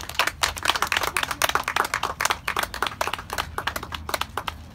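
Small audience applauding: a few people's irregular hand claps, thinning out near the end.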